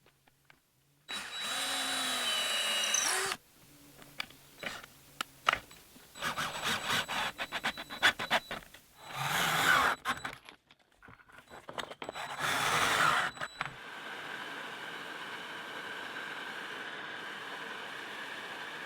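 Power tools and hand work on wood in a workshop. A power tool runs for about two seconds, then a run of sharp clicks and knocks, two short bursts of tool noise, and a steady hum through the last few seconds.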